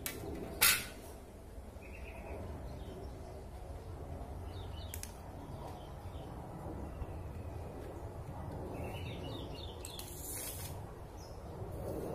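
A loud sharp clack about half a second in, as a hand saw is laid down on a concrete floor. Birds chirp faintly over a low steady rumble, and a short rasp near the end as a steel tape measure is pulled out.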